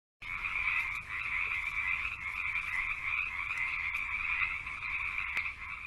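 A dense, steady chorus of many frogs calling together, beginning abruptly.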